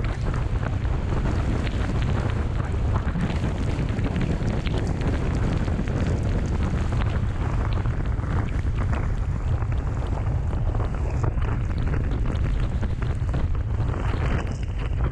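Wind buffeting the microphone of a camera on a moving motorcycle, a steady low rumble, with hiss from the tyres on a rain-soaked road.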